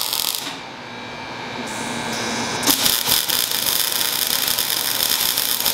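Wire-feed welder arc crackling and sizzling as a weld bead is laid on steel plate. The first bead stops about half a second in, leaving a quieter low hum, and a second bead starts with loud crackling a little under halfway through.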